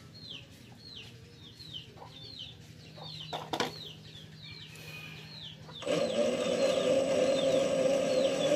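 A bird chirps over and over, short high falling chirps about twice a second, with a few sharp clicks a little after three seconds in. About six seconds in, a mini metal lathe's motor switches on and the chuck spins up, running with a loud steady hum.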